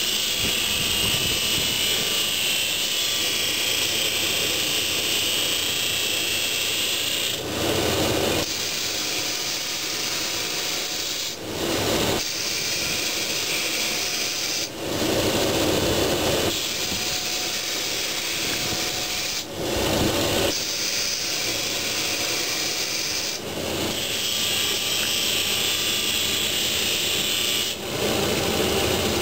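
Steady abrasive grinding or rasping from a farrier's tool working hoof or shoe, in long runs of several seconds, each broken off by a short pause.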